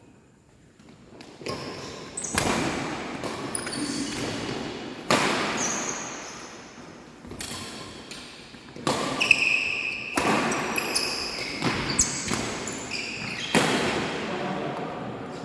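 Badminton rackets striking a shuttlecock again and again in rallies, a string of sharp irregular hits echoing around a large sports hall.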